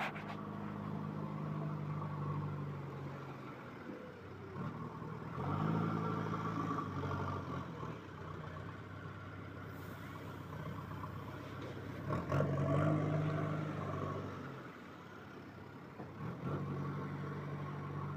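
JCB 3DX backhoe loader's diesel engine running while the machine works, revving up in three spells, about five, twelve and sixteen seconds in, and dropping back between them.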